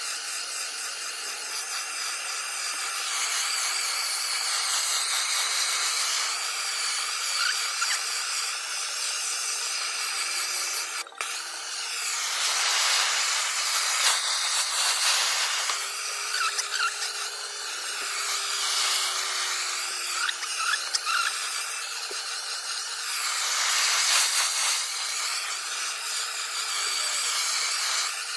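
Handheld gas blowtorch burning with a steady hiss as its flame is swept over a plywood countertop to scorch the surface. The hiss swells and eases as the torch moves, with a brief break about eleven seconds in.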